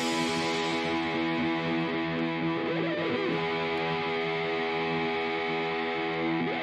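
Background music: sustained guitar chords with distortion, changing about every three seconds.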